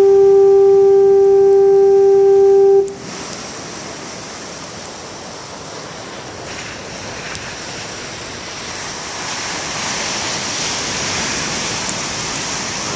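Foghorn sounding one long, steady, low blast of about three seconds that starts and cuts off abruptly. Then the wash of big surf, swelling slightly toward the end.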